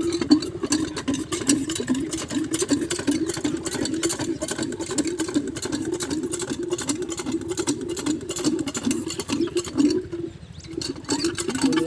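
Small hopper-cooled single-cylinder diesel engine driving an irrigation water pump, running with a steady rhythmic chugging. The sound drops out for under a second about ten seconds in, then resumes.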